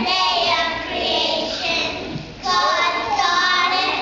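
A group of young kindergarten children singing a song together, with a brief pause between phrases about two seconds in.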